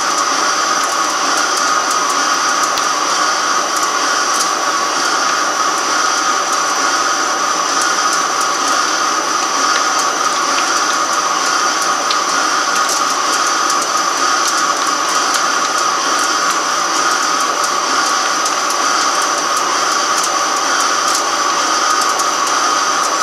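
Microcut BNC-6500 flat-bed lathe turning a large metal cylinder: a steady, even machining noise with a high hiss and scattered faint ticks.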